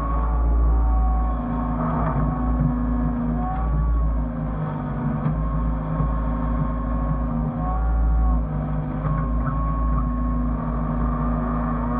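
Hyundai excavator running while digging: a steady low engine rumble with a whine that rises and falls in pitch as the load changes.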